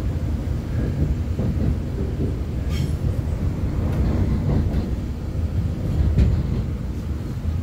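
Commuter train running, heard from inside the carriage: a steady low rumble, with a few brief clicks and rattles from the wheels on the track.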